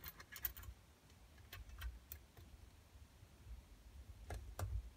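Faint, scattered metallic clicks and ticks of a small roller chain being handled and tried against a scooter's rear sprocket: a quick cluster at the start, a few spaced clicks, then two sharper ones near the end.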